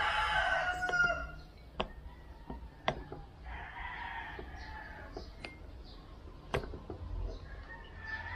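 Roosters crowing: one crow ending about a second in, a fainter one around four seconds in, and another beginning near the end. Scattered sharp clicks come from metal scooter clutch parts being handled.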